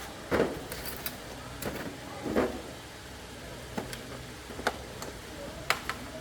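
Tools and metal parts being handled in a repair shop: scattered sharp clicks and knocks, with two short, louder scrapes about half a second and two and a half seconds in, over a low steady hum.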